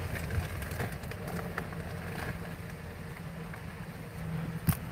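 Car engine running at low speed, a steady low hum heard from inside the cabin, with one sharp click near the end.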